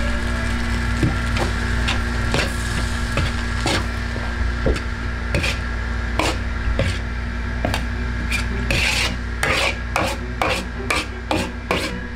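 Repeated irregular knocks and scraping from kitchen utensils, over a steady low hum of kitchen equipment; the knocks come faster from about eight seconds in.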